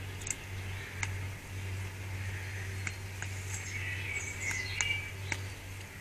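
Jackdaw pecking at suet balls in a wire feeder: sharp taps every second or so, with bird chirps around four to five seconds in and a steady low hum.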